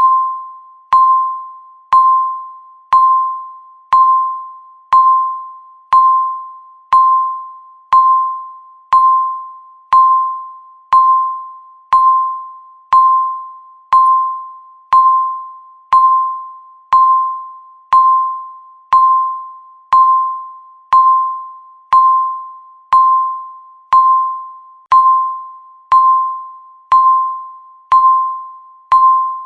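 Countdown timer beeping once a second, each beep marking one second ticked off. Each is a single high tone that starts sharply and fades away before the next, about thirty in steady succession.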